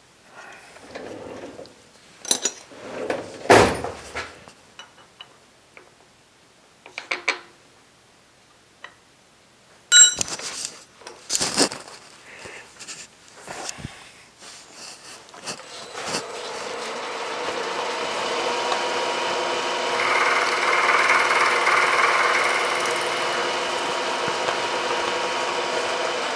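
Scattered clicks and knocks of metal parts and tooling being handled, then about 16 seconds in a milling machine starts and runs steadily, with a cutter taking a pass across the brass fitting for a few seconds near the middle of that run.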